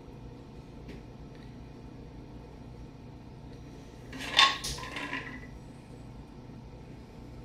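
A copper cocktail shaker is poured into martini glasses, with one short, loud clatter of metal and glass about four seconds in that rings briefly. Otherwise only a low, steady background.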